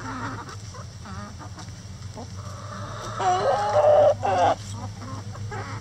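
Backyard chickens clucking, with a louder drawn-out call from one bird about three seconds in, over a low steady hum.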